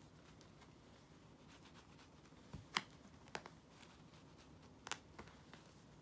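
Soft, scattered clicks and taps from a kitten batting at a feathered cat-teaser toy on a carpet, with a sharper click about three seconds in and another about five seconds in, over a quiet room.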